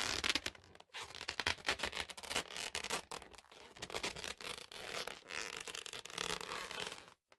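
Irregular scratching, crackling noise made of many rapid, uneven clicks, cutting off abruptly near the end.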